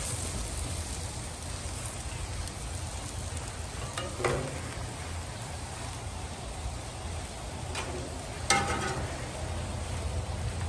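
Chopped steak and onions sizzling steadily on a flat-top griddle, with a metal spatula scraping and clinking against the steel cooking surface twice, about four and eight and a half seconds in.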